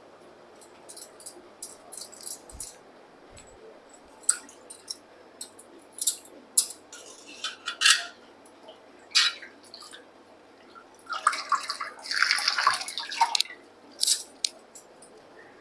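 A metal utensil clinking and scraping against a cooking pot as the rasam is stirred: a scatter of short sharp clinks, with a longer scraping stretch about two-thirds of the way through.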